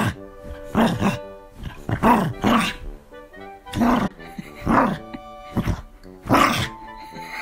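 A small dog grumbling in a series of short vocal sounds, about one every half second to second, each rising and falling in pitch. It is a reluctant dog's protest at being told to get up out of bed.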